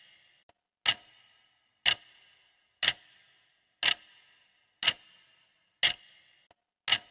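Clock ticking steadily, one sharp tick each second, as a countdown timer's ticking sound.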